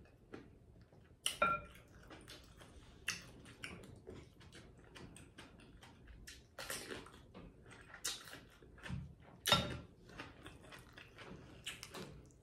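Eating sounds: bites into fresh cucumber and chewing, with irregular crunches every second or two.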